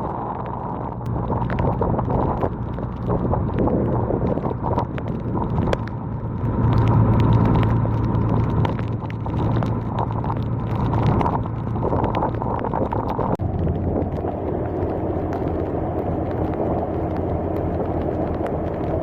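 A flood-rescue boat's motor running steadily, louder for a couple of seconds about seven seconds in, with scattered clicks and knocks. The sound shifts abruptly about thirteen seconds in.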